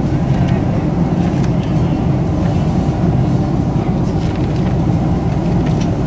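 Steady cabin noise inside a Boeing 767-300 in flight: an even roar of engines and airflow.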